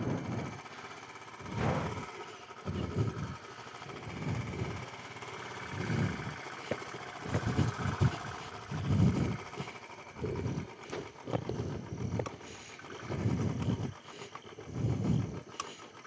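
Royal Enfield 350's single-cylinder engine pulling the motorcycle slowly over a rocky dirt track, surging in short bursts of throttle every second or two.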